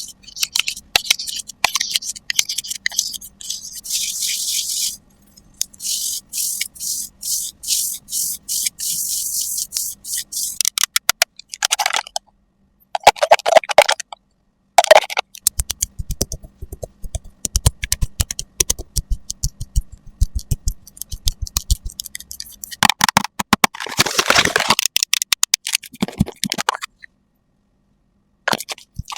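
Close-up ASMR makeup sounds: brushes, applicators and cosmetic containers scraping, brushing and tapping, made up of rapid clicks and stretches of hissy scratching, with a denser, louder burst of scratching near the end.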